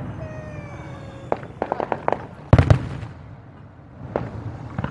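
Fireworks bursting: a quick run of crackling pops a little over a second in, the loudest bang about halfway with a short rumbling tail, and a couple of single pops near the end.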